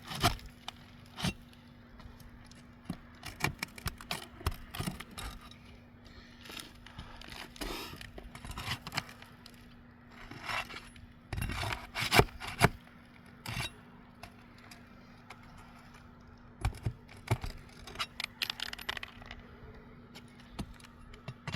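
Metal hand tool prying nails out from under a lifted asphalt roof shingle: irregular scrapes and sharp metallic clicks with short quiet gaps between them.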